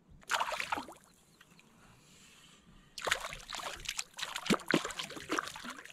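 A hooked fish splashing and thrashing at the water's surface right beside a kayak: one short burst of splashing, then from about three seconds in a run of quick, repeated splashes.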